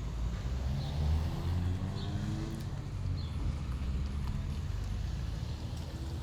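Car engine and road rumble heard while driving, the engine note rising as the car speeds up about a second in.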